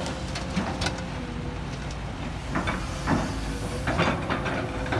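Kobelco SK200 crawler excavator working, its engine running steadily with a faint steady whine on top. Several sharp clanks and knocks, the loudest about three and four seconds in, come as the boom swings back and the bucket bites into the soil pile.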